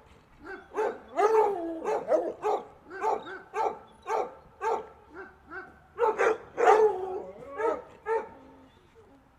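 Several dogs barking together, overlapping barks coming two or three a second, with a few drawn-out yelping calls about a second in. The barking is densest and loudest around six to seven seconds in, then thins out near the end.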